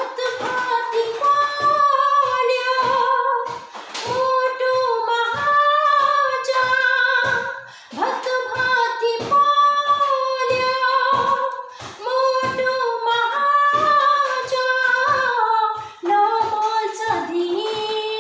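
A woman singing a Nepali song solo, in phrases about four seconds long with short breaks between, over a steady clicking beat a little over two a second.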